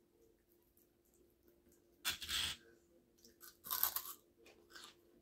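Crunchy veggie sticks being bitten and chewed: two loud crunches, about two seconds and three and a half seconds in, then softer chewing crunches.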